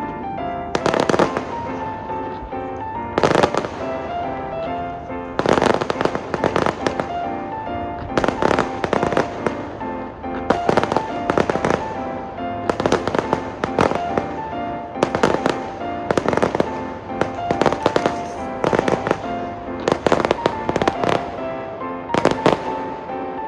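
Aerial fireworks bursting in repeated clusters of bangs and crackles, a new volley every second or two, over background music with a steady melody.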